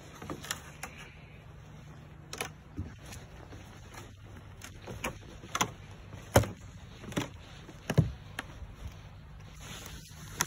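Footsteps on wooden deck boards and steps: a run of irregular knocks and thumps, the loudest about six and eight seconds in.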